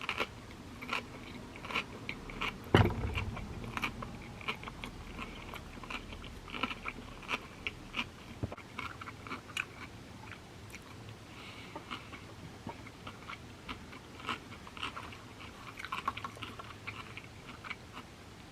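Close-up chewing of a sushi roll: many small wet mouth clicks and smacks. A single louder thump comes about three seconds in.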